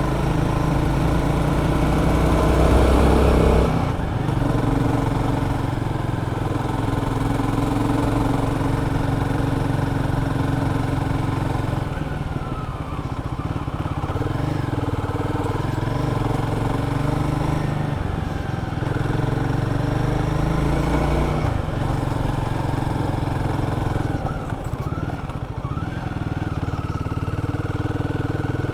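Royal Enfield Guerrilla 450's single-cylinder engine running under way, with its pitch stepping as the throttle and gears change. It is loudest near the start and eases off about four seconds in.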